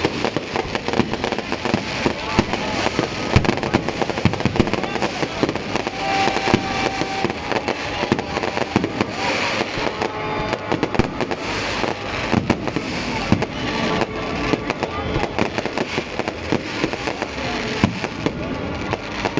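Fireworks going off in a rapid, continuous string of sharp pops and bangs, with people's voices mixed in.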